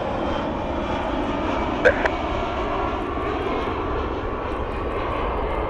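Twin jet engines of a Delta Boeing 757-200 on final approach, a steady jet noise, with a short blip about two seconds in.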